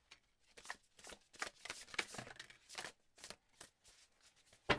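Tarot cards being shuffled and dealt out by hand: an irregular run of quick papery card flicks and slaps, with one sharper, louder snap near the end.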